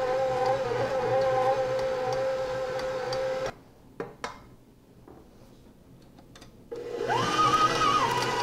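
KitchenAid 6-quart stand mixer's motor running with a steady whine as the dough hook kneads stiff bread dough. It is switched off about three and a half seconds in, with a couple of small clicks in the pause. Near the end it starts again at a higher pitch that rises briefly and then settles.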